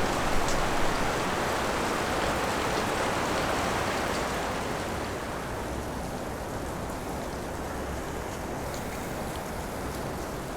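Steady rush of a river's rapids, a little louder for the first few seconds before settling.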